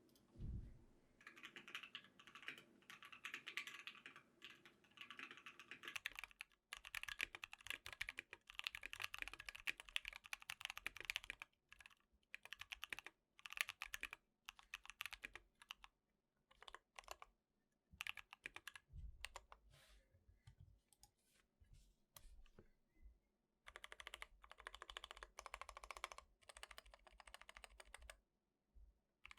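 Typing on a 60% mechanical keyboard in an aluminium case, fitted with Durock T1 and Koala tactile switches and XDA keycaps. The typing comes in fast runs of keystrokes broken by short pauses.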